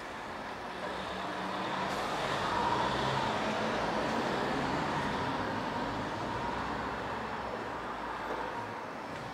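Street traffic noise: a motor vehicle passes, swelling to its loudest a few seconds in and then fading into steady background traffic.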